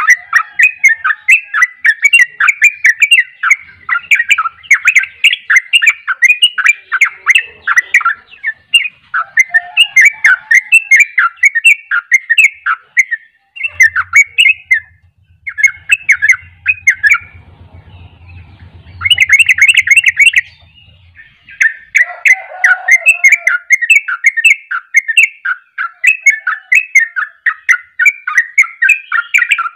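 Caged yellow-vented bulbul singing a long, fast run of chattering notes in rapid succession, the 'ropel' song bird-keepers prize, breaking into shorter phrases and a brief pause just past halfway before resuming.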